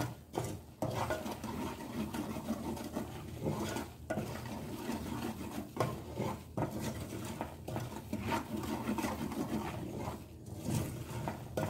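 Wooden spoon stirring and scraping butter and cornmeal in a copper pan, in repeated irregular strokes, as the mixture toasts over low heat.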